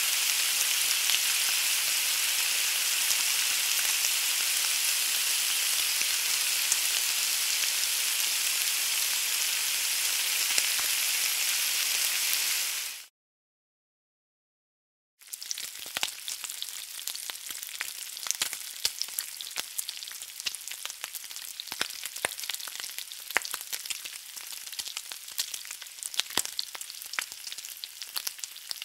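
Food sizzling. A steady, even hiss runs for about the first half, then cuts out for about two seconds of silence. After that comes a crackling sizzle with many sharp pops as stuffed squid grills on a cast-iron grill pan.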